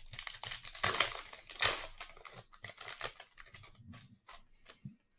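A trading card pack's plastic wrapper being torn open and crinkled by hand, a run of crackles and clicks that is loudest about one and two seconds in, then thins to scattered clicks.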